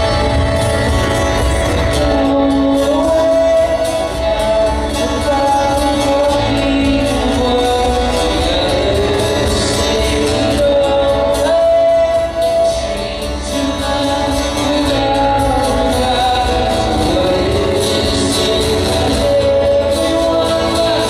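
Live music: a man singing into a microphone over acoustic guitar, with a steady low bass underneath.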